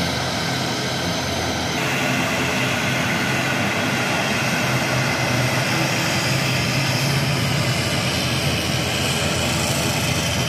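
Twin turboprop engines of a Buddha Air ATR 72 airliner running as it taxis: a steady low drone with a high whine over it, which gets a little fuller about two seconds in.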